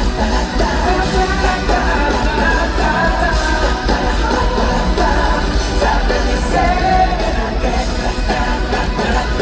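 Pop song played loud through an arena PA, a singing voice over a heavy bass, as heard from the audience.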